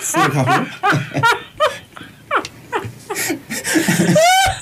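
People laughing heartily after a joke, in quick pulsed bursts at first, thinning to scattered laughs in the middle and swelling again near the end.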